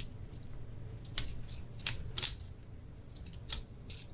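Boker Plus balisong butterfly knife being flipped open and closed, its handles and blade clacking: about five sharp clicks at uneven spacing.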